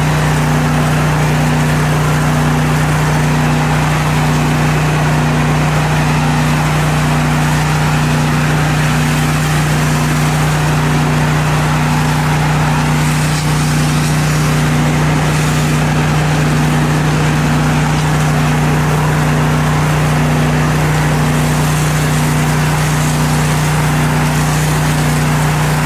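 Gas-engine pressure washer running steadily under load: a constant engine hum with a faint regular pulse about once a second, under a continuous hiss of high-pressure water spraying on concrete.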